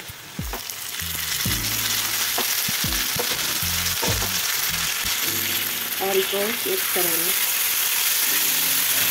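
Chopped tomatoes and onions sizzling in hot oil in a kadai, the sizzle building over the first second or two as the tomatoes go in, while a metal spatula stirs and knocks against the pan.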